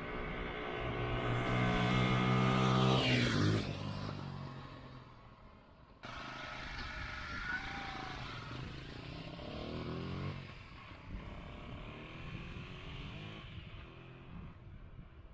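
Honda TL50 Bials' small single-cylinder four-stroke engine revving as the bike rides up and passes close by, its pitch dropping sharply about three and a half seconds in as it goes past, then fading. After a sudden cut it passes again, pitch falling about ten seconds in, and then runs more faintly in the distance.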